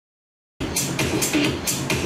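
Complete silence for about half a second, then electronic dance music with a steady beat starts abruptly.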